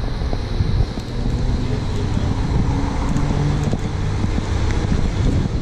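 Steady road traffic noise mixed with wind rumbling on the microphone.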